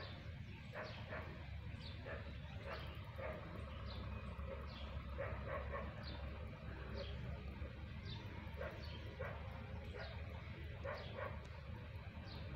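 An animal calling over and over in short, sharp calls, about one or two a second, over a steady low rumble.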